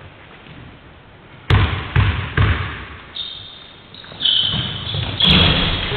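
Basketball bounced three times on a wooden sports-hall floor, about half a second apart: a free-throw shooter's dribble before the shot. High squeaks follow in the second half.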